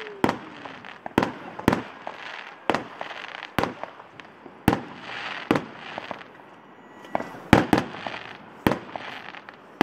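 Aerial fireworks going off: about a dozen sharp bangs at uneven intervals, some followed by a crackling hiss.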